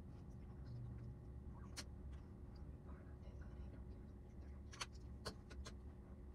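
Quiet room with low hum and a few faint, sharp clicks: one about two seconds in and a quick cluster of three or four near the end.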